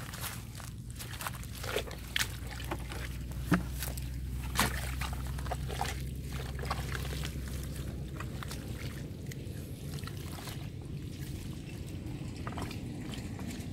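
Wet mud squelching and sloshing as a spade and bare hands dig and scoop out a waterlogged hole, with scattered sharp knocks of the spade, most of them in the first half. A steady low rumble runs underneath and fades out about two-thirds of the way through.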